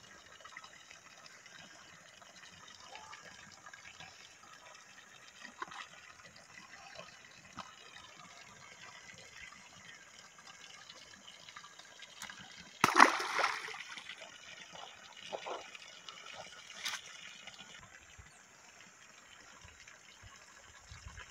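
A short splash in pond water about two-thirds of the way through, louder than anything else, with a few smaller splashes after it, over faint steady background noise.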